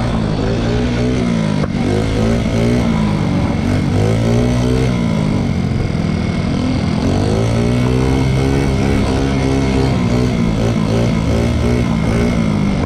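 Small moped engine under way. Its pitch climbs and falls several times as the throttle is opened and eased, over a steady rush of wind and road noise.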